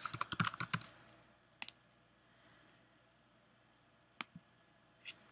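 Computer keyboard typing: a quick run of keystrokes in the first second, one more click near 1.6 s, and two sharp clicks about four seconds in.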